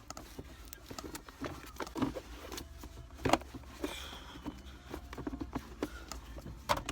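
Scattered light taps and clicks with brief rubbing, as a cloth wipes and handles the plastic surfaces of a car interior.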